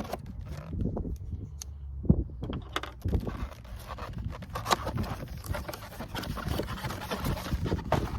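Cardboard box of firework shells being opened and unpacked by hand: scraping, knocks and clicks, turning into denser rustling from about three seconds in.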